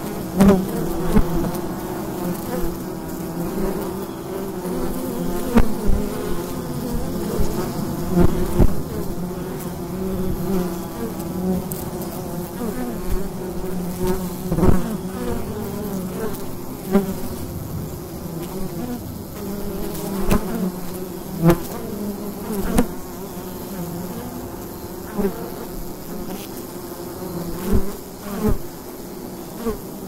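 Wild honey bee colony buzzing at the hive entrance: a dense, continuous drone of many wings, with single bees flying close past the recorder every second or two, their buzz swelling and bending in pitch as they pass.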